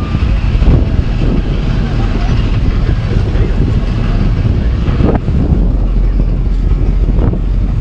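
Steady low rumble of small tour boats' engines as they cruise across the harbour toward the shore, mixed with wind on the microphone and indistinct voices.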